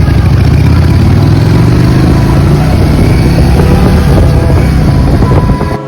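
Motorcycle engines running loud and close, a low rumble with rough, uneven revving, cutting off suddenly near the end.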